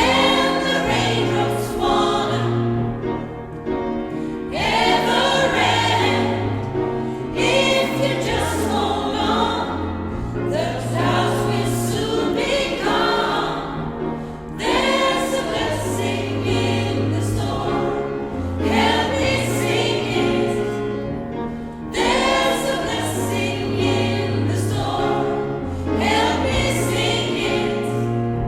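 Gospel choir singing in harmony over an accompaniment whose bass moves in long held notes, in phrases of a few seconds each.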